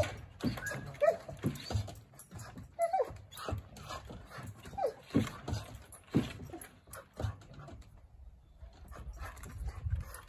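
Treeing Walker Coonhound puppy whining, a series of short whines that fall in pitch, repeated every second or two.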